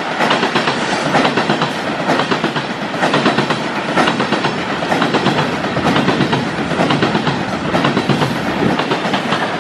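Heavily loaded coal train of steel hopper wagons rolling past close by at speed, the wheels clattering over the rail joints in a fast, dense clickety-clack.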